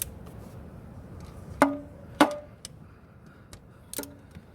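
Three sharp metal clinks from a socket on a string of extension bars knocking against metal, each with a short ringing tone. The first two come about half a second apart, and the third is near the end.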